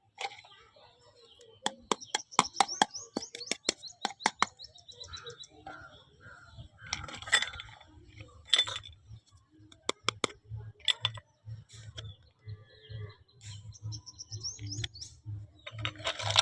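Small plastic toy pieces and packaging being handled: a run of sharp clicks and taps with short high squeaks of plastic rubbing, and a brief rustle about seven seconds in.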